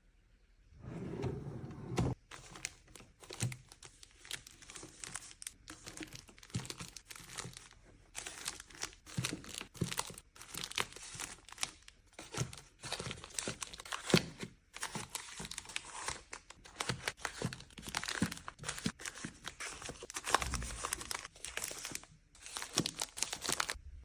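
Packaging being crinkled and torn, with a dense run of small clicks and taps throughout.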